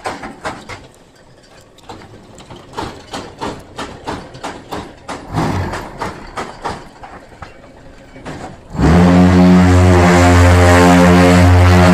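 Pumice block pressing machine working: scattered clacks and knocks of its mechanism, then about nine seconds in a loud, steady hum starts abruptly and keeps going.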